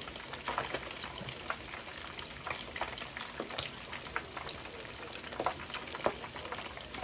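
Fish frying in a pot of hot oil: a steady sizzle broken by irregular sharp crackles and pops.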